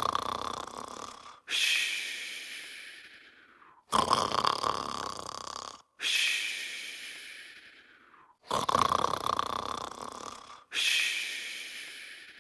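Cartoon character snoring in an even rhythm: a rasping snore on each in-breath, then a long whistling hiss on the out-breath that fades away. Each breath takes about four and a half seconds, about three in all.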